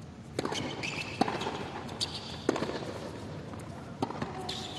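Tennis rally on a hard court: a tennis ball struck by rackets and bouncing, heard as a series of sharp knocks roughly every second, over a faint steady hush from the arena.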